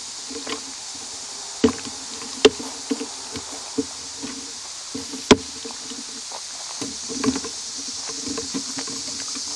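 Sharp clicks and knocks of a camera tripod being handled and collapsed, a handful of them spread irregularly, over a steady high hiss.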